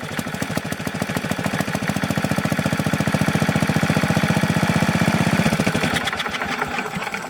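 Small gasoline engine catching and running with a fast, even firing beat, choke fully open after a flooded start: the air-fuel mixture is now right. Near the end the beat weakens and slows as the engine winds down.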